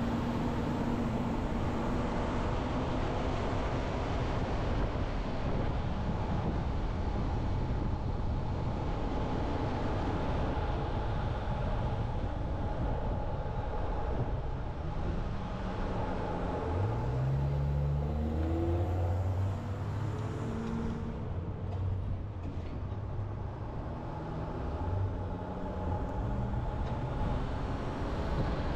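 Car driving on city streets: steady engine and road noise. A little past halfway an engine speeds up, its pitch rising in steps for a few seconds before settling.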